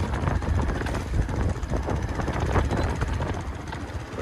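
Motorcycle running while riding a rough dirt track: a steady low engine-and-road rumble.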